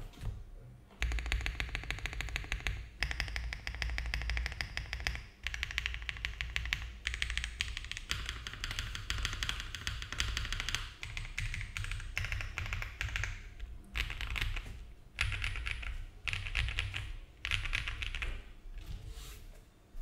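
Fast typing on a Think6.5 V3 mechanical keyboard with Mode Obscura switches, GMK keycaps, a polycarbonate plate and case and plate foam: a quick, clacky run of keystrokes broken by a few short pauses. A single knock comes right at the start, just before the typing begins.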